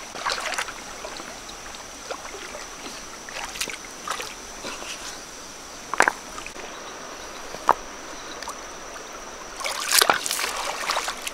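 Water sloshing and splashing as catfish are caught by hand in shallow water, with sharp splashes about six seconds in and a busier burst of splashing near the end, over a steady high-pitched whine.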